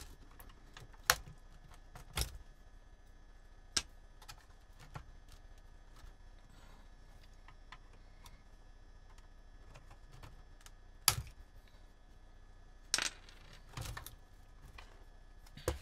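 Scattered sharp clicks and knocks as the opened VEF 202 transistor radio's chassis and plastic case are handled and shifted on a workbench: a few light taps early on, then a louder knock about eleven seconds in and a couple more near the end.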